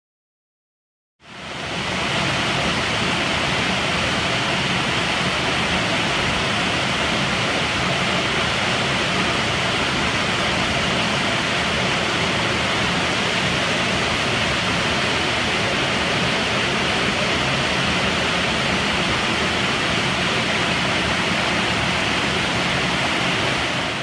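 Waterfall spilling off a rock overhang into a pool: a steady, loud rush of falling water, fading in about a second in.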